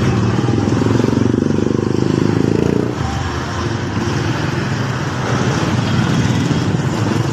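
Motorcycle engine running close by with a fast, even pulse. It is louder for the first three seconds, then drops back about three seconds in and keeps running.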